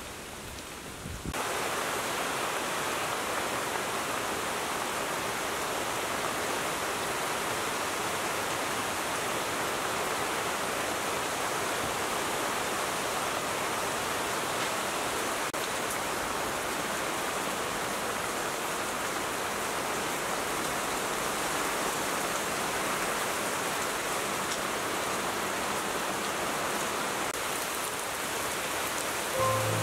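Steady rain falling, an even hiss that sets in abruptly about a second in.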